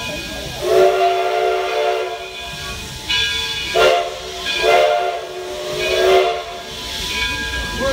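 Steam locomotive whistle blowing four blasts, the first the longest, as the train pulls away, over a steady hiss of steam venting from the cylinders.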